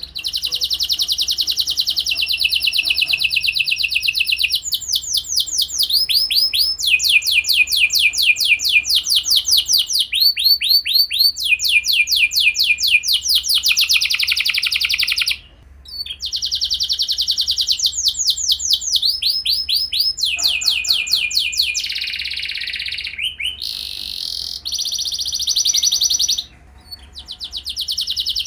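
Domestic canary singing a long song of rapid trills: fast runs of repeated downward-sweeping high notes, grouped into phrases that change in speed and pitch every few seconds, with two short pauses.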